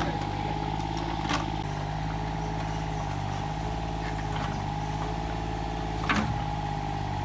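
An engine running steadily at an even speed, with a sharp knock about a second in and a louder knock near the end.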